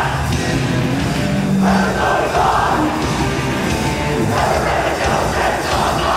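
Hardcore punk band playing live: loud, dense distorted guitars and drums, with stretches of shouted vocals.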